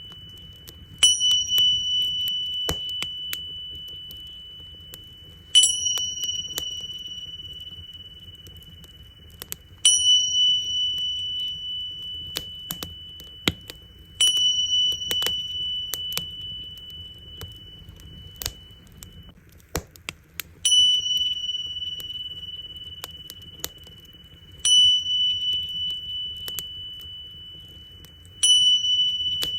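Tingsha cymbals struck seven times, about every four seconds; each strike rings as a clear, high, steady tone that slowly fades. Underneath, a wood fire crackles with scattered sharp pops over a low rumble.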